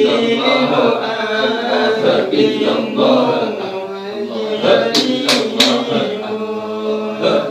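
A group of men chanting together in a Samman dhikr, voices blended into one continuous chant. About five seconds in, three sharp hits come in quick succession over the chanting.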